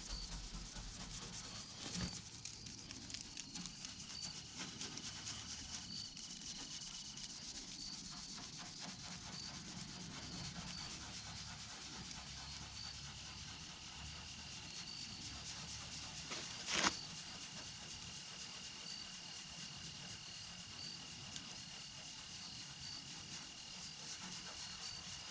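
Wet 0000 steel wool rubbed lightly over the painted body panel of a 1957 Chevrolet, a faint, steady scrubbing. A sharp click stands out about seventeen seconds in.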